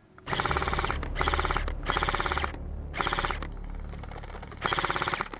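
Airsoft rifle firing five short full-auto bursts of rapid mechanical clicking, close by.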